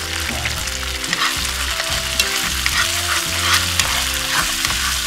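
Sauce sizzling in a frying pan while a spatula stirs and scrapes through it in repeated strokes.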